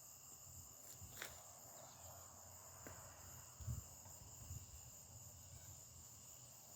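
Near silence: a faint, steady outdoor insect chorus, with a soft low thump about three and a half seconds in.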